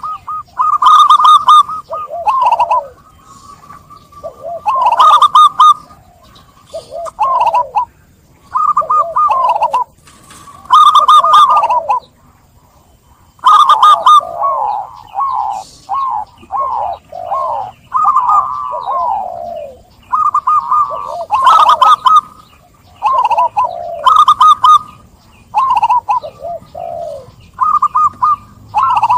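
Zebra doves (perkutut) singing: loud bursts of rapid, rolling cooing phrases every second or two, some overlapping one another.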